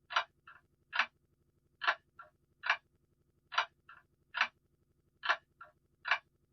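Clock ticking steadily: a loud tick a little more than once a second, with a fainter tick between some pairs of loud ones.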